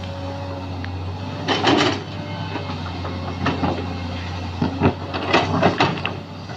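Sany SY215C excavator's diesel engine running steadily under load, with bursts of clattering knocks from loading fill soil about two seconds in and again near the end.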